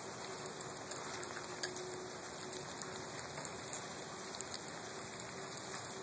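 Light rain falling steadily: a soft even hiss with scattered small ticks of drops.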